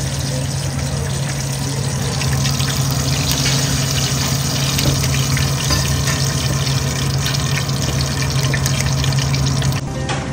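Chicken pieces deep-frying in hot oil in a wok, a steady sizzling with dense fine crackling over a steady low hum. The sizzle drops away near the end.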